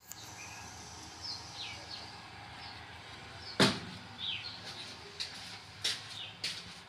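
Quiet room with faint short chirps, like small birds outside, over a steady low hiss. A sharp knock about three and a half seconds in is the loudest sound, and a few lighter knocks follow near the end.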